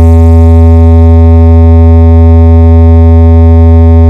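A loud synthesizer bass drone: one low note held steady at full volume with a long ladder of overtones. It is the kind of sustained bass 'vibration' tone used to test and shake a DJ sound system's speakers.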